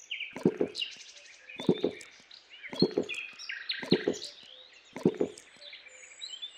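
Birds chirping and twittering, with a cow's drinking gulps: a low double sound repeating about once a second, five times.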